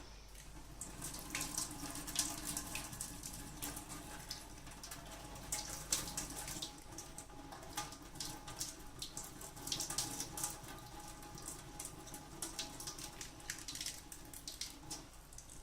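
Boiling water poured from a kettle in a steady stream over an expanded-foam plane part, splashing and trickling off it. The hot water is heating the crushed foam so that it swells back into shape.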